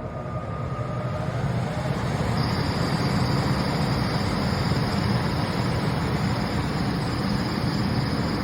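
HVAC blower motor running with a heavy, rough rattle as it shakes in its mount, with a steady high whine that comes in a couple of seconds in. The rattle is the sign of a motor shaking itself apart on worn parts, a fault the technicians blame on improperly installed ductwork.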